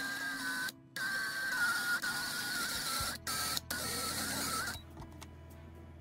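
Drill press running as its small bit drills out a pin in a Victorinox Alox aluminium scale to disassemble the knife: a steady whine with a slightly wavering pitch. The whine breaks off briefly about a second in and twice past three seconds, then stops near five seconds.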